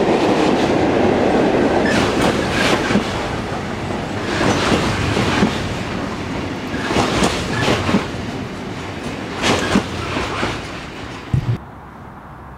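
Freight train of loaded coal hopper wagons rolling past, wheels clacking over rail joints every second or two over a steady rumble that slowly fades. Near the end the sound drops suddenly to a quiet background hiss.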